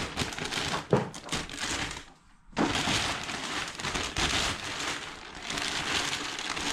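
Thin plastic sheeting crinkling and rustling as it is pulled off an engine block, with a brief pause about two seconds in.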